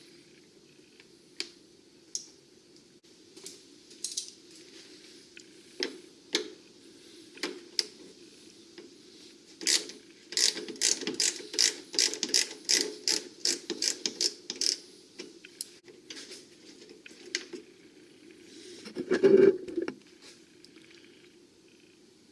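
Ratchet wrench clicking as a body ground bolt is loosened: scattered strokes at first, then a quick steady run of clicks for about five seconds, with a louder clunk near the end.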